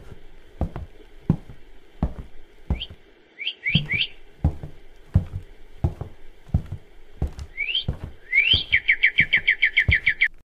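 Footsteps at an even walking pace, about one every 0.7 seconds, with birds chirping over them: a few short rising chirps around three to four seconds in, then a fast run of chirps near the end that stops abruptly.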